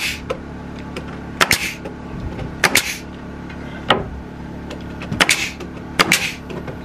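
Pneumatic nail gun firing nails up into wooden soffit boards: about nine sharp shots, spread unevenly and several in quick pairs. A steady low hum runs underneath.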